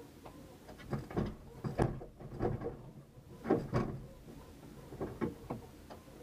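Irregular clunks and knocks as the bonnet of a Mitsubishi Lancer Evolution VI rally car is unlatched and lifted, heard from inside the cabin.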